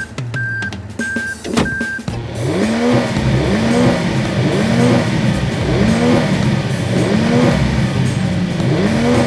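Four short, evenly spaced beeps, then a cartoon vehicle engine running steadily over background music that repeats a rising-and-falling figure about once a second.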